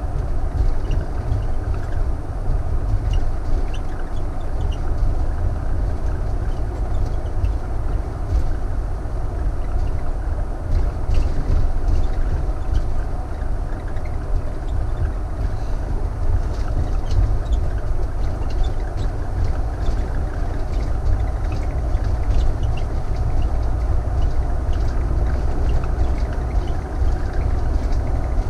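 Thor Vegas motorhome driving at steady speed: a continuous low engine and road rumble with scattered faint ticks and rattles.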